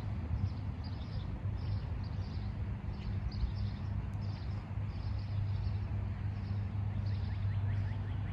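A steady low engine hum from distant machinery, with small birds chirping over it about twice a second.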